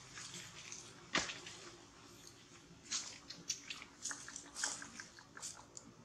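Light crackling and clicking from monkeys shifting about on dry leaf litter, with one sharp click about a second in and a run of short ticks in the second half.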